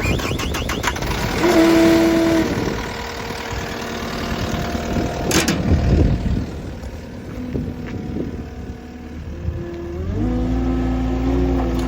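Cat 259D3 compact track loader's diesel engine running, with a brief steady tone about a second and a half in. After about ten seconds the engine note rises and holds steady and strong.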